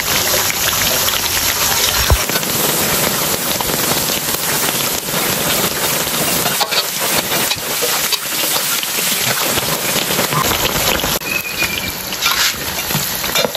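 Hot oil sizzling and crackling steadily as purple sweet potato and glutinous rice gemblong patties deep-fry in a wok, with a few sharp clicks scattered through. The patties are still bubbling hard at the edges, not yet done.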